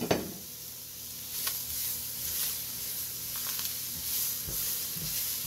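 Sliced onions sizzling in hot fat in an enamelled Dutch oven, with a spatula stirring them and knocking lightly against the pot now and then. The hiss grows about a second in.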